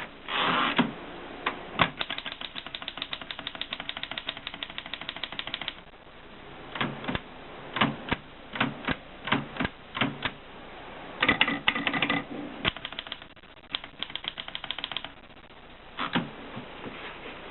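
Erika 5 manual typewriter being worked: separate key strikes, and runs of quick, even clicks at about ten a second.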